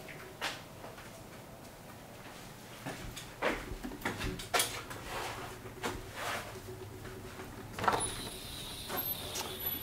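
A front door with a keypad lever lock being handled and swung open: a series of sharp clicks and knocks from the latch, handle and door.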